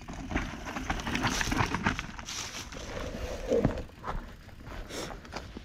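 Mountain bike clattering as it rolls fast over rough trail: tyres on dirt and rock with a run of sharp, irregular knocks and rattles from the bike, over a steady low rumble.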